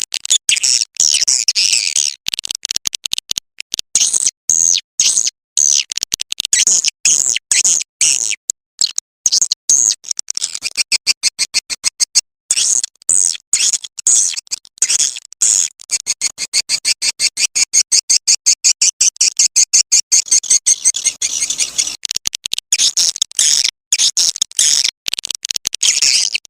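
Swiftlet lure call: a recording of edible-nest swiftlet twittering, rapid high chirps in quick runs broken by short gaps, as played through a speaker to draw swiftlets to a nest house.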